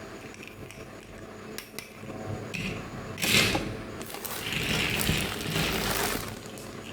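Small plastic toy figures and their packaging being handled: scattered light clicks and taps, then louder rustling from about three seconds in that lasts a few seconds.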